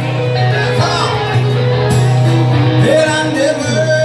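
Live amplified duo of electric guitar and acoustic-electric guitar playing a country-rock song, with a man singing.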